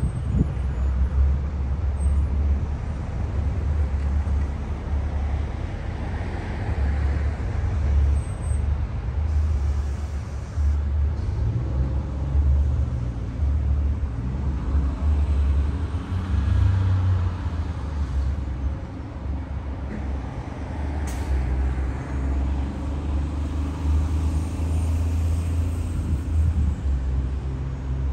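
Road traffic passing, with a few cars swelling up and fading away, over a steady low rumble.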